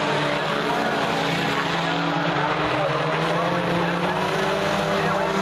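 Several race cars running laps on a dirt oval, their engines revving and easing off as they go through the turns, with a few engine pitches overlapping and gliding up and down.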